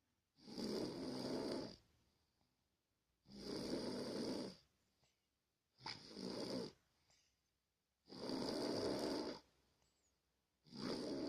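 Snoring in a steady rhythm: five snores, one about every two and a half seconds, each lasting about a second, with near quiet between them.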